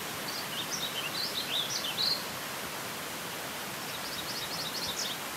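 Warbling Vireo and MacGillivray's Warbler singing over the steady rush of a stream: a rambling warbled phrase of quick up-and-down notes in the first two seconds, then a shorter run of quick repeated notes near the end.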